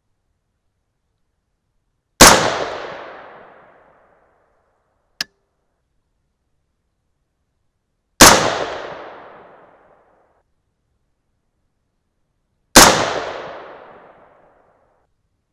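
Three unsuppressed shots from a .223 AR-15 with an 18-inch White Oak Armament SPR barrel, about six and then four and a half seconds apart, each a sharp crack followed by about two seconds of fading echo. A small click sounds between the first two shots.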